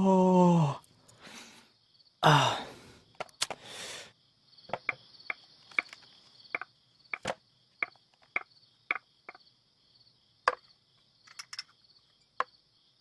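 A man's long yawn with falling pitch at the start, and another yawn about two seconds in. Then crickets chirp steadily, with about a dozen light, separate clicks of a porcelain tea set being handled.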